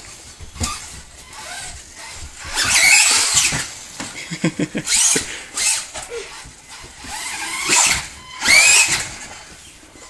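Helion Animus TR electric RC truck driven in short throttle bursts: its motor and gears whine up and down in pitch, several times, loudest about three seconds in and near the end.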